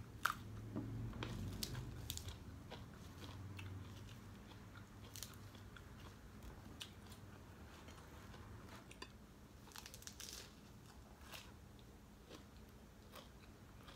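A person eating at close range: quiet chewing with scattered crisp crunches and mouth clicks as she bites into fresh greens and leaf-wrapped food.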